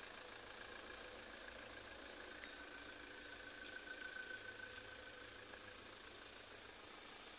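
Toyota Hilux pickup's engine idling and growing steadily fainter, with a steady high-pitched whine throughout.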